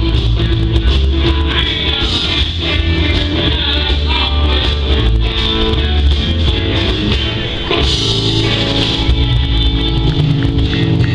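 Live rock band playing: electric guitars, bass and drums.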